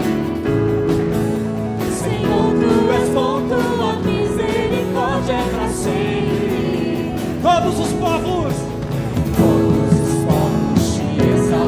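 Worship song sung by several voices over steady held instrumental chords, in a gospel style.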